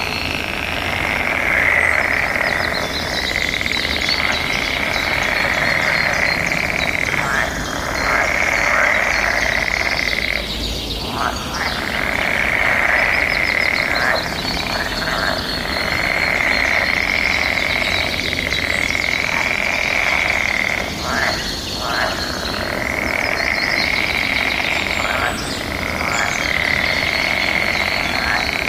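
Dense forest chorus of many birds singing and chirping over a continuous trilling. The trilling runs in stretches of several seconds with short breaks between them.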